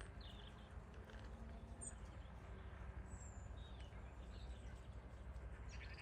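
Quiet outdoor countryside ambience: a steady low rumble and faint hiss, with a few brief high-pitched small-bird chirps about two and three seconds in.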